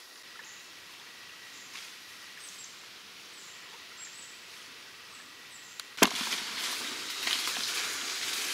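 Quiet swamp air with a run of faint, high, short falling chirps. About six seconds in there is a single sharp pop, followed at once by loud rustling and crackling of leaves and saw palmetto fronds as someone pushes through the brush.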